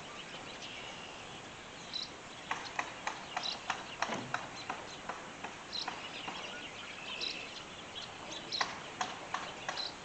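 Birds chirping, short high calls every second or two, over irregular sharp knocks from carpenters hammering in the distance.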